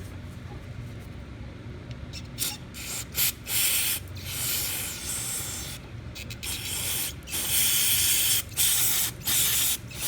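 Aerosol spray can hissing in a series of bursts, some short puffs and some held for a second or two, as dirty carburetor linkage is sprayed clean so the moving parts won't seize.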